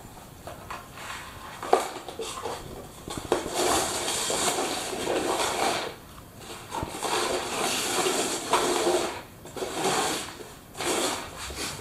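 Three upturned cups being slid and shuffled across a wooden floor: a scraping hiss in several stretches of a second or two, with a sharp tap about two seconds in.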